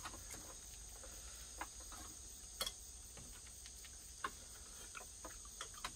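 A steady high-pitched insect chorus, with a few short clicks of chopsticks and spoons against stainless steel bowls.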